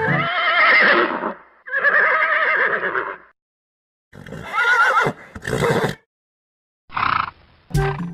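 Horse neighing: four whinnies with short gaps between them, the last one short.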